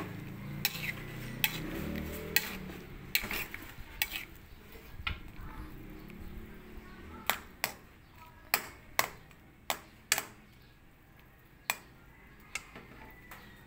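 Metal slotted spatula knocking and scraping against a steel wok while stirring shrimp in butter sauce: a dozen or so sharp clinks at irregular intervals.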